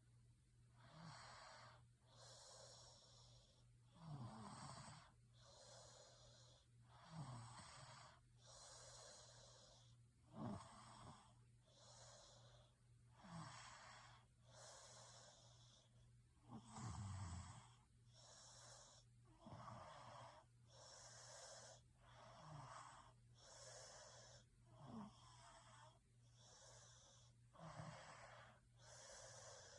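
A person snoring faintly and steadily, about one breath every second and a half, with a low rattling snore on roughly every other breath.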